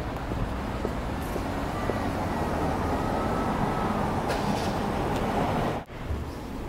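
City street traffic noise, a steady rumble of passing vehicles with a faint high whine that rises and falls midway. Near the end it cuts off abruptly to quieter room sound.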